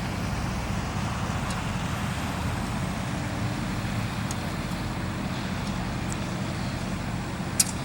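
A heavy engine running steadily at idle, a low, even drone. A single sharp click sounds near the end.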